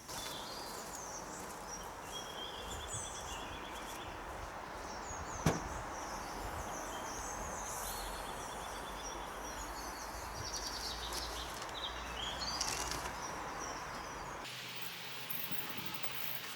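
Outdoor background noise with a low rumble and birds chirping, one sharp click about five and a half seconds in; the low rumble cuts off near the end.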